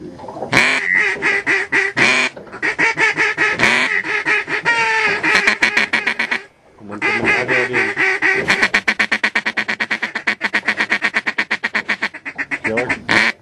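Mallard duck call blown hard: a few long, loud quacks, then, after a short break, a long run of rapid feeding chatter.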